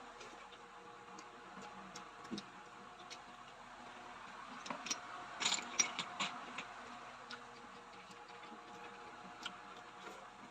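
Scattered light clicks and taps of eating, clam shells and utensils knocking, with a quick cluster of them about halfway, over a faint steady hum.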